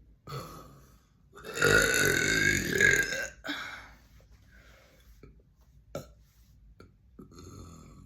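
A person belching: one long, loud burp of about two seconds, starting about a second and a half in. Fainter short sounds come before and after it.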